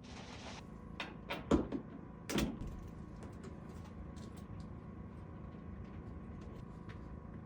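Wooden cabinet doors being handled: a short rubbing hiss at the start, then several sharp knocks and clicks of doors closing and catching in the first two and a half seconds, followed by only faint ticks.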